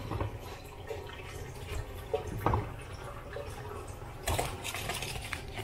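Kitchen tap running steadily into a stainless steel sink, with a few short knocks and clicks about two and a half and four seconds in.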